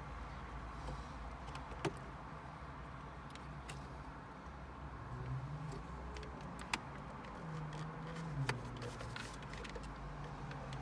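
A few sharp clicks and knocks, three standing out, as the car stereo head unit is worked loose and slid out of the dashboard, over a low steady hum.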